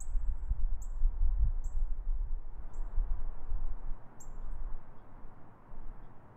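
A small bird giving short, very high chirps, about seven of them at uneven intervals, each sweeping quickly downward, over a steady low rumble.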